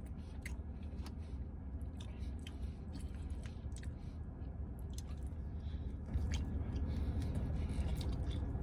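Close-up chewing and mouth sounds of a man eating plant-based buffalo wings: scattered wet clicks and smacks over a steady low hum.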